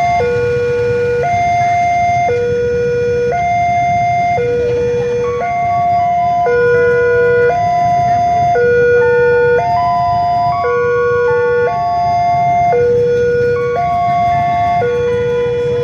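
Railway level-crossing warning alarm sounding, a two-tone signal alternating between a low and a higher tone about once a second. A second, higher-pitched pair of tones switches out of step with it. A steady low rumble runs underneath.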